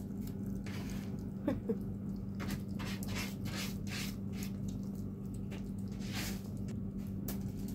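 Cats eating: irregular wet chewing and smacking clicks over a steady low hum, with a brief faint squeak about a second and a half in.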